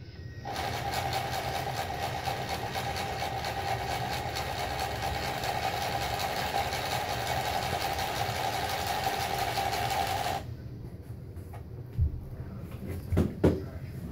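Electric drive motor and propeller running gear of a radio-controlled model ship running steadily with a high whine, then cutting off suddenly after about ten seconds. A few short knocks follow near the end.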